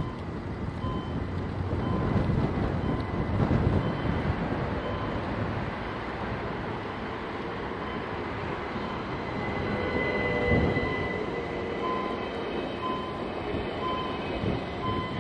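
Commuter train approaching and rolling over a level crossing, with a high steady whine and wheel squeal rising from about nine seconds in and loudest shortly after. A short tone repeats about once a second, and wind buffets the microphone in the first few seconds.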